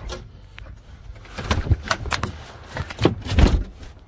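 A series of knocks and thumps from a door, footsteps and the phone being handled, coming in two clusters about one and a half and three and a half seconds in.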